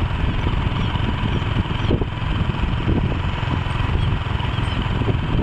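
Motorcycle engine running steadily, with a dense low rumble of wind noise on the microphone.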